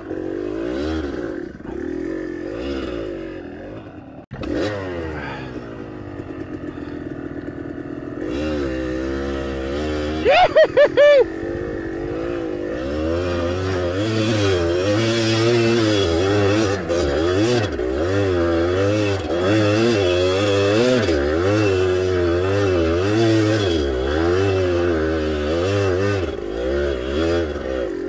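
Two-stroke dirt bike engines revving hard and unevenly, the pitch rising and falling over and over as the bikes fight for grip on a slick, muddy hill climb. About ten seconds in, one engine briefly revs very high and very loud.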